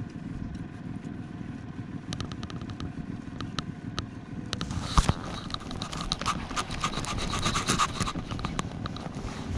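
Irregular clicking and ticking from a baitcasting reel as a hooked snapper is fought and reeled in, growing denser in the second half, with a single knock about halfway through, over a steady low background rumble.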